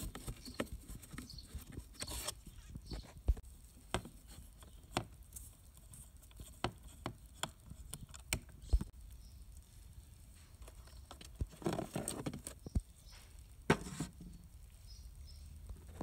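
Scattered light clicks and taps at irregular spacing from hands working a screwdriver and wires in a plastic ride-on toy car's battery compartment, with a short rustling scrape about twelve seconds in.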